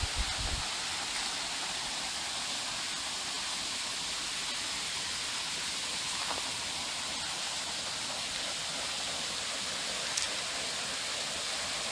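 Rocky forest stream rushing steadily over stones. A few low thumps on the microphone at the very start.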